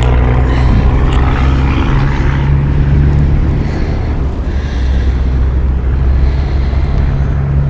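A steady, low engine hum drones throughout and steps up a little in pitch about two seconds in.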